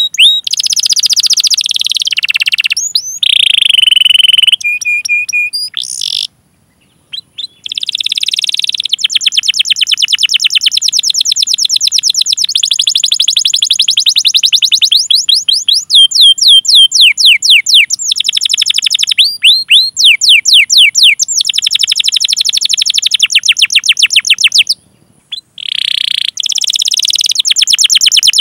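Domestic canary singing: long, fast runs of high, repeated downward-sweeping chirps (cuit cuit) and rolling trills. The song breaks off briefly twice, about six seconds in and near the end.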